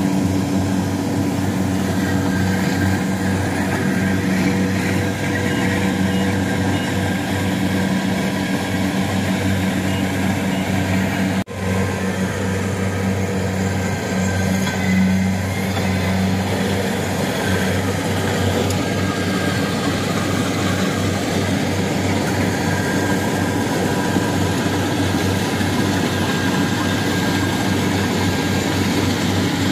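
Kubota DC-70 Plus combine harvesters running steadily at working speed while cutting rice in a flooded field, a continuous diesel engine hum. The sound breaks off for an instant about eleven seconds in.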